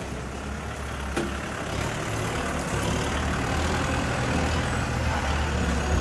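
A heavy diesel engine of earthmoving machinery runs with a steady low rumble, growing gradually louder from about two seconds in. There is a single sharp click about a second in.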